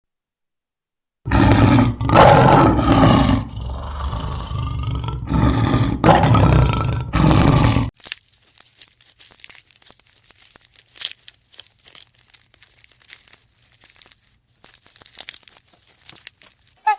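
An animal's loud roaring calls, several long surges one after another, then quiet crunching and rustling.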